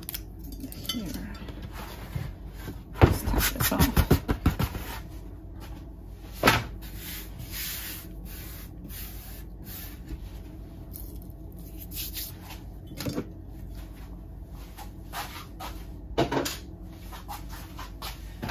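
Objects handled and set down on a work table: a quick run of knocks and clatters about three seconds in, then single knocks now and then.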